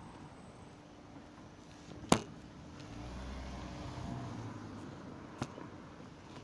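Street ambience with a motor vehicle's low engine rumble swelling in the middle, and a sharp knock about two seconds in, then a smaller one near the end.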